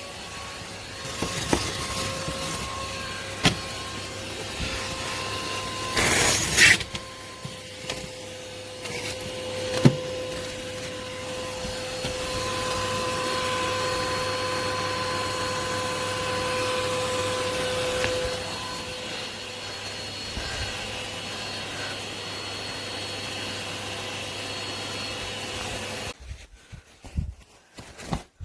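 Henry vacuum cleaner running with a steady motor hum and hiss, with a brief loud rush of air about six seconds in. The motor cuts off near the end, followed by a few light knocks.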